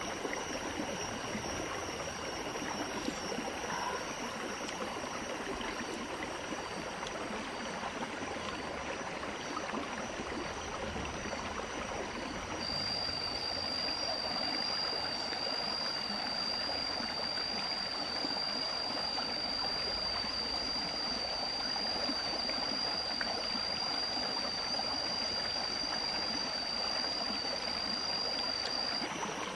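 Shallow rocky forest stream running steadily over stones. A thin, steady high tone joins about twelve seconds in and stops shortly before the end.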